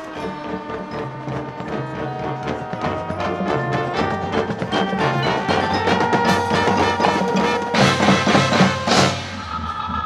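A high school marching band playing its field show: a fast, steady percussive pulse under held chords. The music builds louder, then drops back sharply about nine seconds in.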